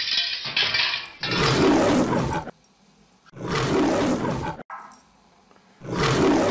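Three lion roars from a sound effect, each lasting a little over a second with short silent gaps between them, preceded by a brief crashing noise in the first second.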